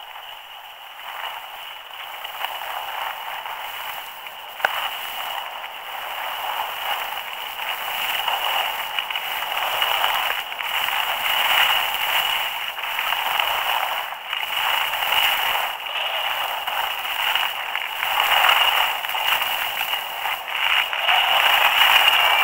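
Skis sliding and scraping over packed snow, with wind rushing past a helmet-mounted camera, as a skier heads downhill. It is a steady hiss that grows louder as the run picks up speed.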